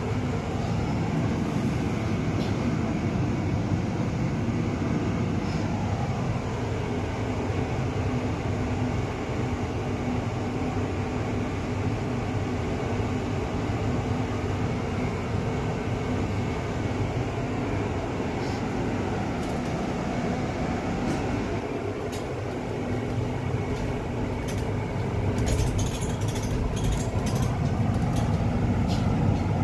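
Steady engine and drivetrain hum inside a double-decker bus's upper deck while it waits in traffic. Near the end it grows louder, with a whine rising in pitch, as the bus pulls away, plus some light rattles.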